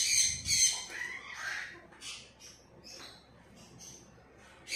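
Blue-and-gold macaw squawking: two loud, harsh squawks in the first second, then a few softer, shorter calls.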